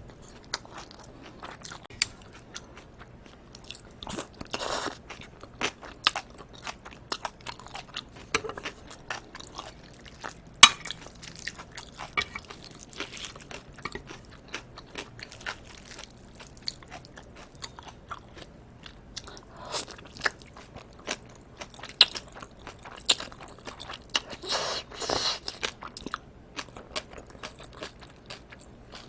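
Close-miked mouth sounds of someone eating raw live octopus and cold spicy noodles: chewing with many sharp, wet clicks and smacks, and a few longer, noisier mouthfuls in between.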